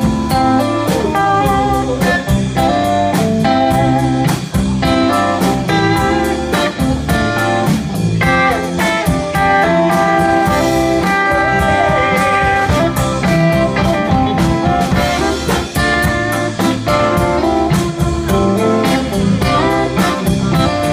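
A live band playing blues-rock on electric guitars, bass guitar and drum kit, with a steady beat. A lead guitar holds long notes around the middle.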